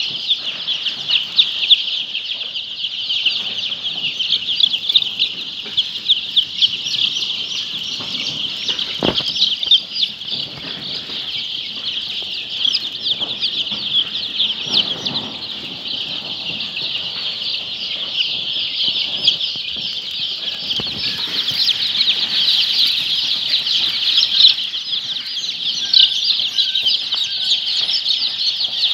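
A flock of poultry birds making a dense, unbroken chorus of high chirping and peeping, with a single knock about nine seconds in.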